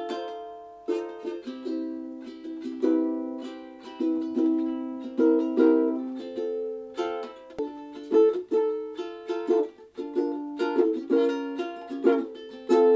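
Blackwood tenor ukulele with a spalted flame maple body being played: chords struck a couple of times a second, each ringing out and fading before the next.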